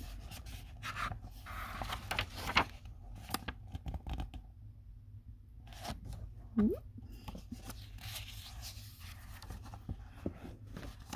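Pages of a picture book being handled: soft paper rustling with scattered small taps and crinkles, strongest in the first few seconds.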